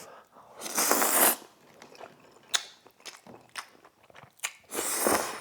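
Close-miked eating sounds from a mouthful of noodles with braised beef rib being bitten and chewed. Two louder noisy bursts come about a second in and near the end, with soft chewing clicks between them.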